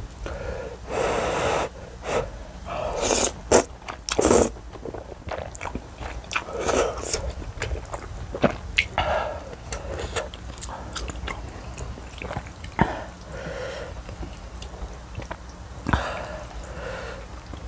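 Close-up eating sounds: glass noodles and spicy rice cakes being slurped and chewed, with the loudest slurps about a second in and between three and four and a half seconds in. Scattered sharp clicks of chopsticks against the bowl run through it.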